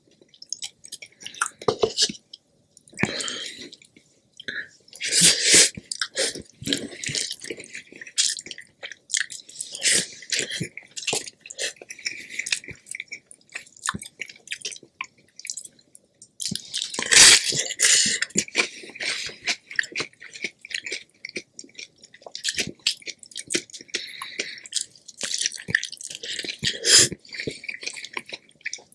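Close-miked chewing and wet mouth sounds of someone eating, a dense run of small clicks and smacks with louder stretches about five and seventeen seconds in.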